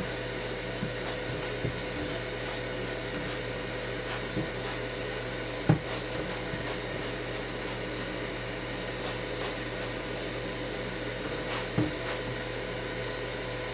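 Short hissing spurts from an Evo trigger oil mister, pumped many times in quick runs, over a steady background hum. A sharp knock about six seconds in and a softer one near the end.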